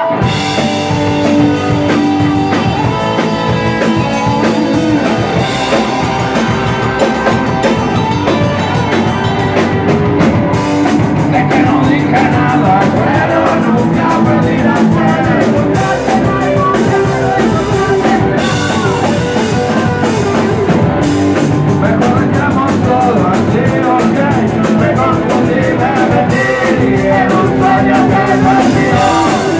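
Rock band playing loud and live: distorted electric guitar, bass guitar and a drum kit, with a man singing over them from about the middle on.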